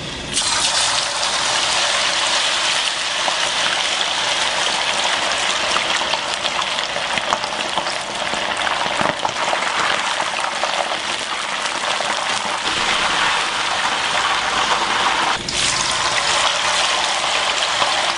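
Bacon and eggs sizzling and crackling in a frying pan, a steady dense hiss with fine pops throughout. A brief break about 15 seconds in, after which the sizzle sounds brighter.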